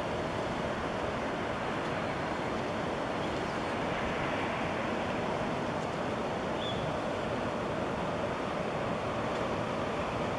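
Steady city din of Times Square traffic: an even, unbroken roar with a faint steady hum under it.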